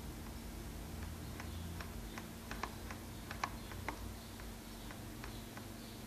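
Throttle stick of a FrSky Taranis transmitter being pushed back and forth by thumb, its gimbal giving a scatter of small, irregular clicks, the loudest few about halfway through. A low steady hum runs underneath.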